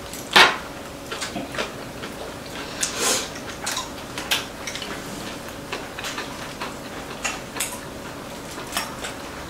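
Metal chopsticks and spoons clicking and tapping against ceramic bowls and plates during a meal, in scattered irregular clicks, the loudest about half a second in.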